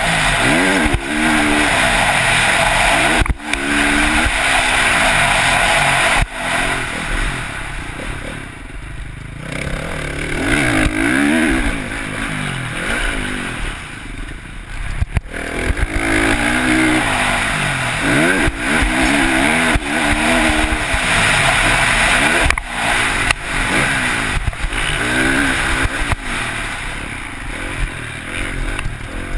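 Motocross dirt bike engine revving up and falling off again and again as the rider accelerates and shifts, with the engine dropping off briefly twice, around 9 and 15 seconds in. Wind rushes over the helmet-mounted microphone, and there are a few sharp knocks.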